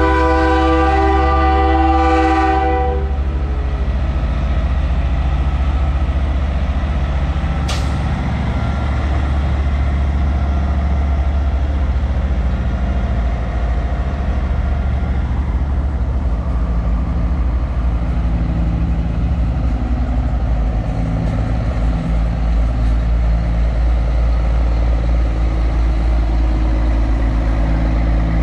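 A semi truck's air horn blows a loud chord of several steady tones and cuts off about three seconds in. After it comes the deep steady rumble of diesel big-rig engines pulling away, with a single sharp click about eight seconds in.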